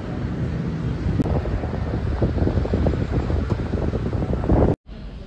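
Wind buffeting the microphone outdoors: a loud, gusty, low rumble. It cuts off abruptly near the end, leaving quieter room background.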